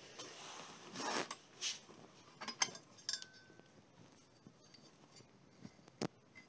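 Rummaging by hand in a wooden workshop drawer full of metal scraps: a sliding scrape, then pieces of metal clinking and scraping together, one clink ringing briefly, and a last knock near the end.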